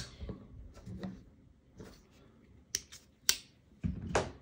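Folding pocket knives being handled: a few faint taps, then two sharp clicks near the three-second mark and a louder click with a knock just before the end.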